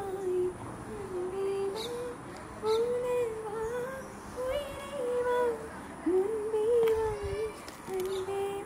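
A high voice humming a slow, wordless melody in long, gliding notes, with birds chirping briefly now and then.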